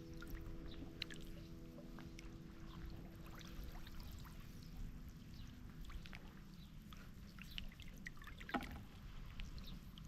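Faint splashing and dripping in shallow water, a scatter of small irregular splashes with one louder splash near the end. A held musical chord fades out over the first half.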